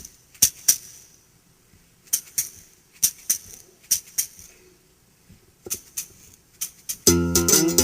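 Percussion music: sharp, jingly rattle hits, mostly in pairs about a second apart. About seven seconds in, a plucked string instrument comes in loudly with a chord.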